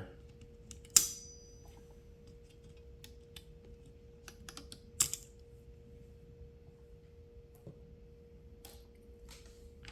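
Small metal parts of a T4E TR50 marker clicking and tapping as they are handled while the barrel spring is taken off. A sharp click with a brief metallic ring comes about a second in, another sharp click about five seconds in, over a faint steady hum.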